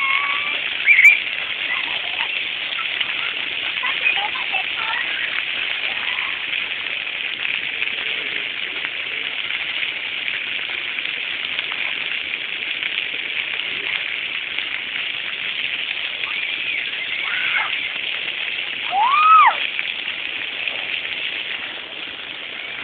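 Waterfall rushing steadily, with a couple of brief high-pitched rising-and-falling sounds over it, the loudest about 19 seconds in.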